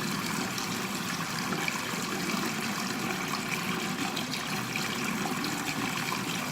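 Water running steadily from a bathroom tap into a sink.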